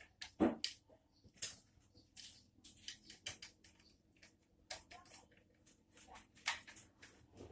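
Irregular small clicks and knocks of an air rifle's wooden stock and metal action being handled and fitted together.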